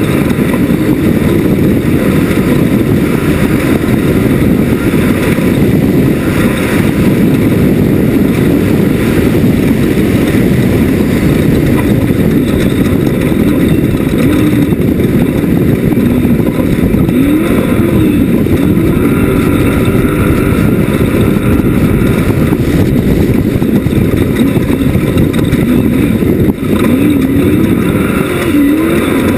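Class 1 off-road race buggy's engine running loud and hard at speed, its pitch swinging up and down from about halfway through as the throttle comes on and off.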